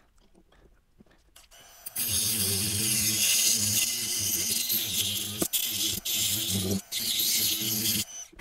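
After a couple of seconds of faint handling clicks, a handheld rotary tool runs for about six seconds, its bit grinding into the hard plastic casing of a USB dongle. A steady motor hum sits under the grinding hiss, with a few short let-offs near the end.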